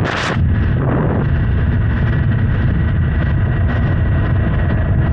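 Strong wind buffeting the microphone on a moving Honda Hornet 900 motorcycle, a steady low rumble with the bike running beneath it, and a short hissing gust right at the start.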